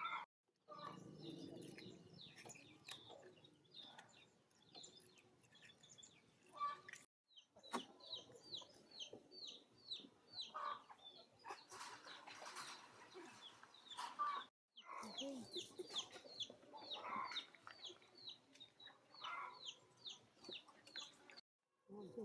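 Chickens clucking amid rapid, repeated high chirps, several a second. The sound cuts out abruptly a few times.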